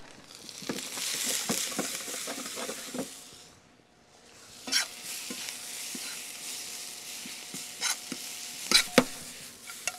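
Spinach and shallots sautéing in olive oil and butter in a stainless steel frying pan, a steady sizzle with stirring. The sizzle fades out briefly about three and a half seconds in, then comes back, with a few sharp clicks near the end.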